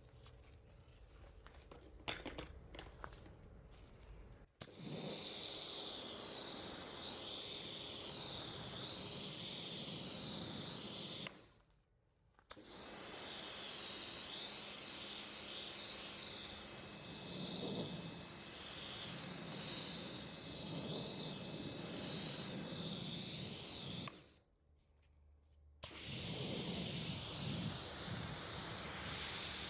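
Pressure washer jet spraying water across an oak tabletop to rinse off iron residue. Its steady hiss starts about four and a half seconds in and cuts out twice, each time for a second or two.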